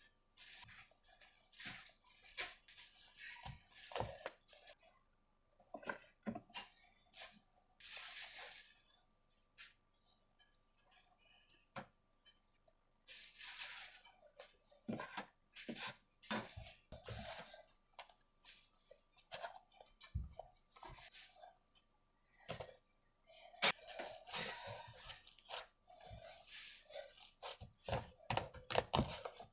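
Slime being handled, stretched and squeezed by hand, giving irregular bursts of sticky crackling and popping with short pauses between them.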